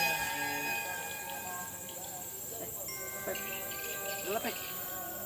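Night insects, crickets among them, chirping in a steady high shrill, with faint sustained tones over it and a short wavering sound about four seconds in.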